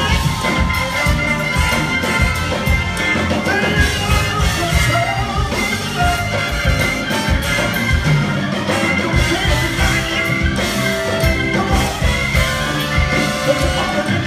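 Live soul band playing an instrumental passage: trumpet, saxophone and trombone over drum kit, electric guitar and keyboard, with a steady beat.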